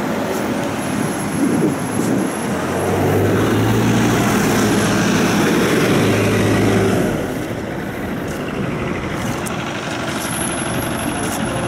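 City bus running, heard from inside the bus: a steady engine hum over road and traffic noise. The hum is louder for a few seconds mid-way and eases off about seven seconds in.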